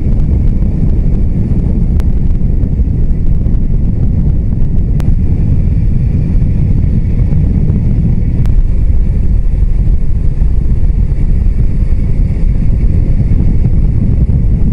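Wind buffeting the microphone of a motorcycle moving at road speed: a loud, steady low rumble, with a few faint clicks.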